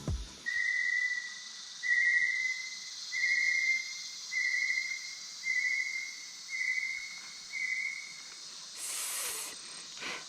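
A bird's call: seven whistled notes on one pitch, evenly spaced about a second apart, over a steady high hiss of jungle insects. A short burst of noise comes near the end.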